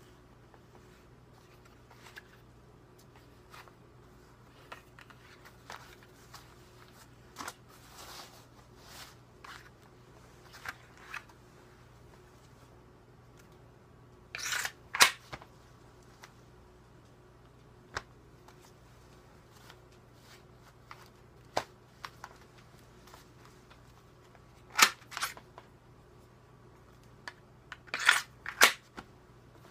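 Kydex knife sheath clicking and snapping as it is handled, unlocked and opened, with light clicks and rustles throughout and loud sharp snaps in pairs about halfway through and twice near the end.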